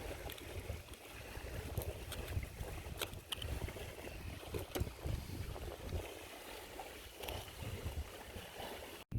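Wind buffeting the microphone in uneven gusts, with scattered light clicks and ticks, cut off abruptly near the end.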